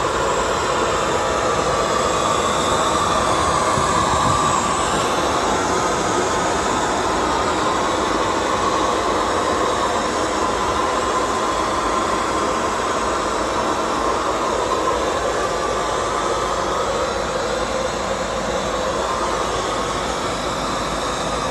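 Steady in-flight cabin noise of a Boeing 747-400, an even rush of air and airframe noise heard inside the aircraft's lavatory.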